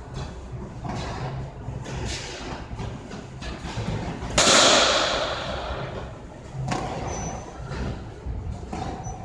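Batting cage: one loud, sharp impact of a pitched baseball about four seconds in, dying away over about a second in the hall. Fainter knocks come now and then over a steady low hum.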